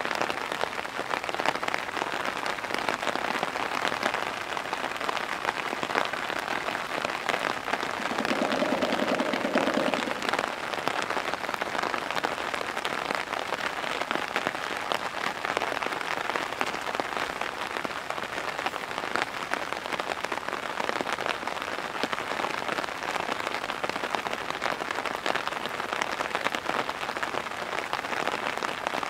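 Heavy downpour: steady dense rain pattering on hard ground and surfaces. About eight seconds in, a brief low rapid drumming sound stands out for a couple of seconds.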